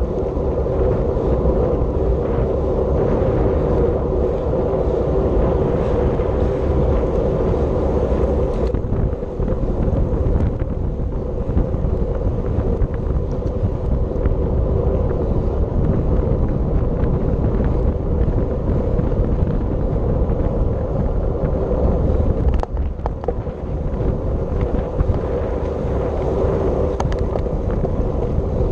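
Wind rushing over the microphone of a camera on a bicycle moving at race speed, a steady roar with a constant hum from the moving bike underneath. A few brief knocks and dips come about nine seconds in and again near twenty-three seconds.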